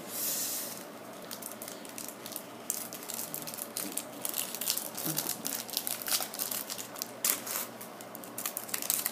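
Foil trading-card booster pack wrapper crinkling and tearing as it is opened by hand, a brief rustle at the start and then a run of quick crackles.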